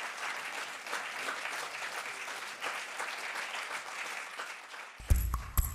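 Theatre audience applauding, the clapping thinning out toward the end. In the last second come a few sudden loud low thumps.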